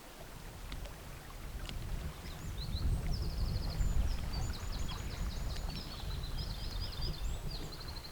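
Low rumble of wind buffeting the microphone. A small songbird sings high, fast trilled phrases from about two and a half seconds in.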